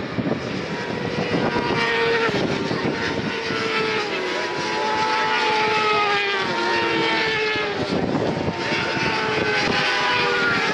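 Racing motorcycle engines at high revs passing along the track, their pitch slowly falling as they go by, with another bike's engine coming through about eight seconds in.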